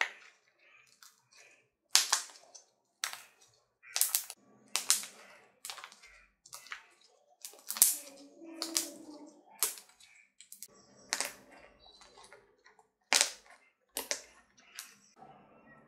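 Fluffy slime, made of glue and shaving foam, squeezed and pressed in the hands, giving sharp irregular pops and clicks about one or two a second with soft squelching between.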